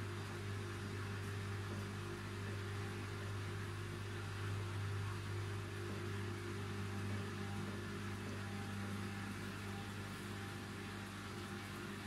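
Arçelik front-loading washing machine tumbling wet laundry in its drum during the wash phase, its motor giving a steady hum.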